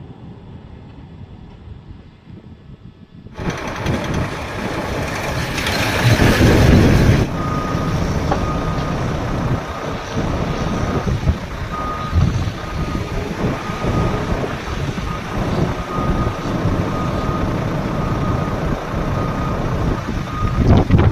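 Volvo FMX tipper truck's reversing alarm beeping again and again at one pitch as it backs up, over the diesel engines of the truck and a Volvo crawler excavator working in broken rock. The first few seconds hold only a faint low rumble. Then the machine noise comes in loud, with a harsh, rough patch about six to seven seconds in, before the beeping starts.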